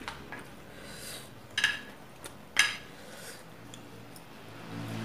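Spoon and plates clinking as rice is served and food is eaten, with two sharper clinks about a second and a half and two and a half seconds in, and a few lighter taps between.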